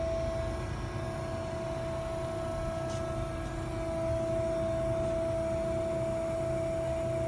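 A Carell Comac 305CN3.1V CNC angle roll, powered up and running at idle: a steady electric motor hum with an even, unchanging whine over a low rumble.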